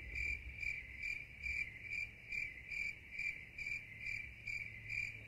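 Cricket chirping steadily, about two and a half chirps a second, over a low steady rumble.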